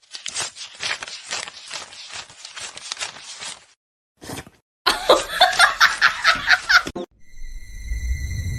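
A person laughing in quick pulsed bursts, then, after a short pause, a second run of laughter. Near the end this cuts to steady high-pitched tones over a low rumble.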